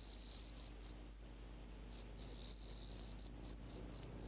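Cricket chirping: a faint, regular run of short high chirps, about five a second, pausing for about a second roughly a second in before resuming.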